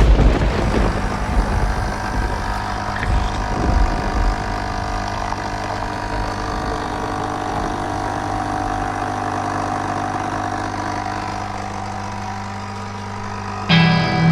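An engine running steadily at an even speed. Near the end, music with guitar comes in over it.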